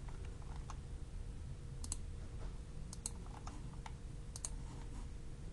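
A computer mouse clicking several times at irregular intervals, some clicks in quick pairs, over a faint steady hum.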